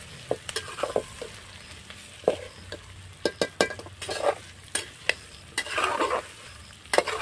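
Sliced onions with whole spices frying in hot mustard oil, sizzling, while a spoon stirs and scrapes the pot with many sharp, irregular knocks and clicks.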